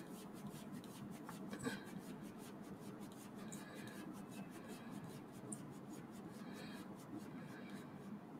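Faint scratching and fine clicks of a small precision screwdriver turning tiny screws into a small electric motor's mount, with one sharper click about two seconds in.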